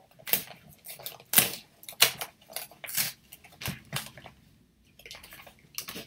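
A cardboard advent calendar door being torn open and a small packet pulled out: a run of sharp cardboard rips and crinkles, thinning out after about four seconds, with a few more near the end.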